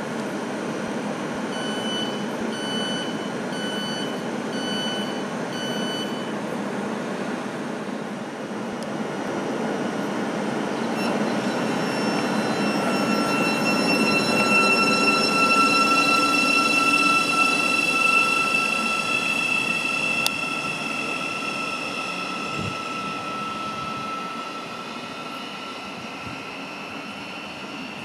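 Thameslink Class 700 electric multiple unit: five evenly spaced door-closing warning beeps, then the electric traction whine of the train pulling away, a steady high whine that builds, is loudest about halfway through, and fades towards the end.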